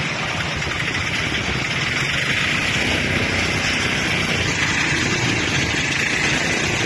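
Motorcycle and auto-rickshaw engines running in traffic on a flooded street, over a steady hiss.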